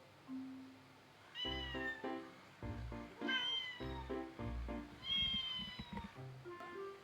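Three high, kitten-like meows, each falling in pitch, about a second and a half in, after three seconds and after five seconds, over background music with a stepping melody and bass.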